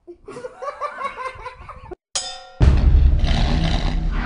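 Laughter in short bursts for about two seconds. It stops abruptly, then comes a bright chime and, about half a second later, a loud cartoon car engine sound effect that revs on under intro music.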